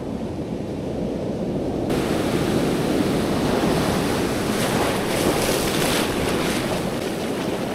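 Ocean surf breaking and washing up the beach, swelling about two seconds in into a loud hissing wash, with wind buffeting the microphone.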